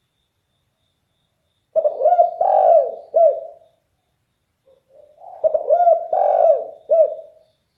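Derkuku (spotted dove) cooing with a deep, very loud voice: two phrases of several arched coo notes each, the first about two seconds in and the second about five seconds in.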